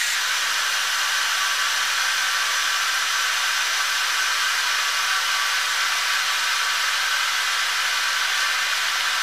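Steady rushing hiss of air from a ship's ventilation system, even in level throughout.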